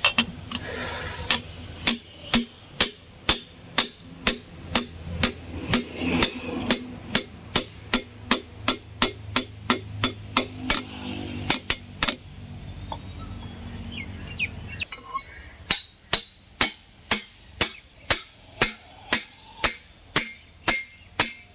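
Hammer tapping a piston down into a cylinder bore of a Volvo EC210B excavator's D6E diesel engine block: sharp, ringing metallic taps about twice a second, pausing for a few seconds midway before carrying on.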